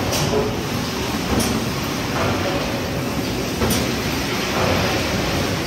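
800-ton Sumitomo hot forging press running: a loud, steady machine din with a short, sharp, high-pitched noise every one to two seconds as it works the hot metal.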